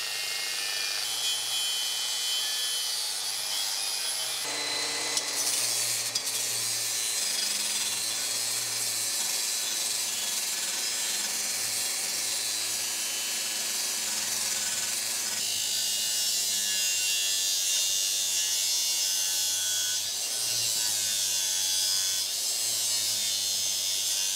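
Power tool scouring rust off sheet metal, running steadily with a dense, gritty hiss. The sound changes character abruptly twice, about four and a half and fifteen seconds in.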